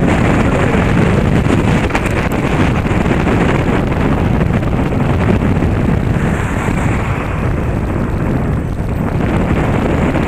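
Loud, steady wind noise as air rushes over the microphone of a bicycle-mounted camera while riding.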